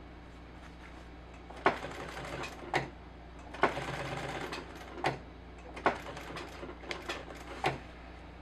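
Sewing machine stitching in short stop-start bursts, each run opening with a sharp clunk. Several single clunks fall between the runs.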